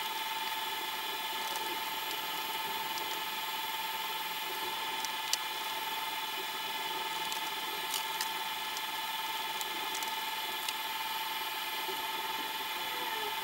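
A handful of sharp, scattered clicks and taps from plastic motorcycle parts being handled and fitted as the passenger seat and rear rack are put back on, over a steady hum of several constant tones.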